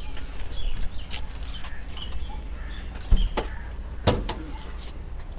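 A Maruti Suzuki Alto's door and cabin fittings being handled: a few sharp clicks and knocks, the loudest about four seconds in, over a steady low rumble.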